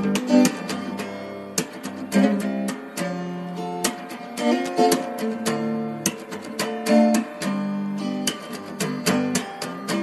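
Background music played on acoustic guitar, plucked and strummed chords with frequent note onsets.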